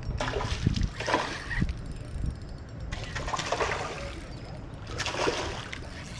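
A hooked bass splashing and thrashing at the water's surface as it is played in on a spinning rod, in three bursts of splashing.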